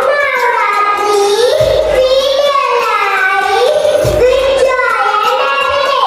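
A young girl singing solo into a microphone, in long, gliding notes.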